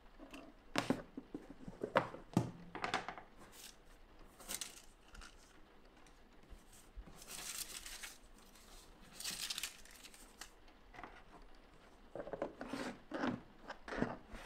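A craft knife slices through sheets of screen-print transfer paper on a cutting mat in several short strokes. Then the cut paper prints rustle and crinkle as they are handled. Near the end come a few clicks and knocks as a plastic food container's lid is pressed shut.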